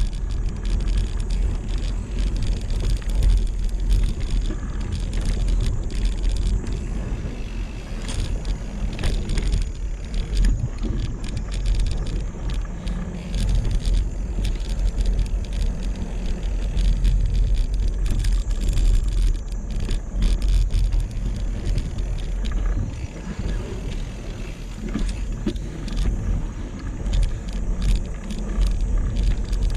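Mountain bike being ridden along a dirt trail: a steady low rumble of wind on the microphone and tyres on the dirt, with frequent clicks and rattles from the bike.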